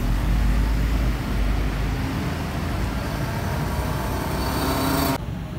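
Coach bus pulling away: a low engine rumble and road noise, strongest at first and fading as the bus draws off. The sound cuts off abruptly about five seconds in.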